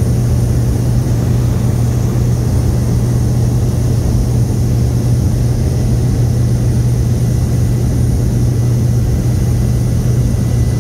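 Small high-wing propeller plane in flight, heard from inside the cabin: a steady, loud low drone of engine and propeller.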